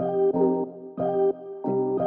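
Background music: chords struck in a steady repeating rhythm, starting abruptly.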